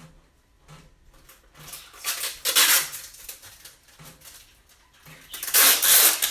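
Packing tape pulled off the roll in two long tearing strips, each lasting about a second, with small handling clicks between them as it is laid on a cardboard box.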